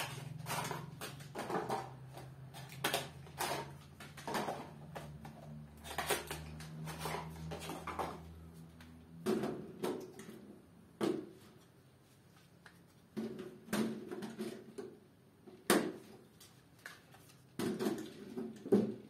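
Plastic contactor modules being handled and clipped onto a metal DIN rail in a switchboard: a series of irregular clicks and knocks, with short quiet stretches and one sharper click late on.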